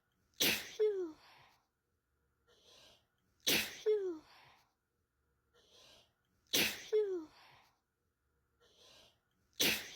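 One person's sneeze looped over and over: a short breath in, then a sharp sneeze ending in a voiced 'choo' that falls in pitch. The identical sneeze repeats about every three seconds, four times.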